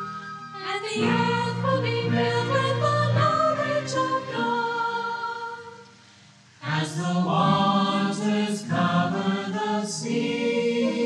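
Choir music: voices singing in sustained chords, fading briefly a little past halfway and then coming back in full.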